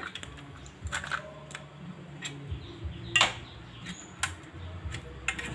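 Irregular light clicks and taps of cable plugs and leads being handled at a set-top receiver box, one louder click about three seconds in, over a faint low hum.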